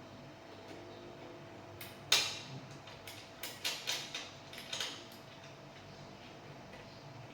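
Hardware and parts being handled during assembly: one sharp clack about two seconds in, then a run of lighter clinks and clicks.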